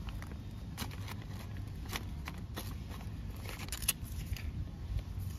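Hand trowel scooping and scraping potting soil into a flowerpot: a few short gritty crunches and scrapes, the sharpest a little under four seconds in, over a steady low background rumble.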